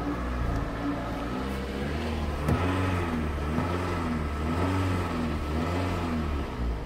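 Toyota 1ZZ-FE four-cylinder petrol engine running at about 2000 rpm on light throttle, its speed wavering up and down. Solvent has been poured into the cylinders to decoke the piston rings.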